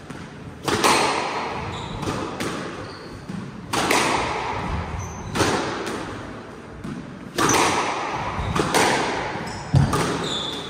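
Squash rally: the ball cracking off rackets and walls about every one and a half seconds, each hit echoing around the enclosed court.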